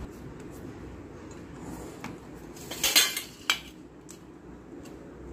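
Rolling pin knocking and clattering against a rolling board: a few light knocks, a louder clatter about three seconds in and a sharp knock half a second later.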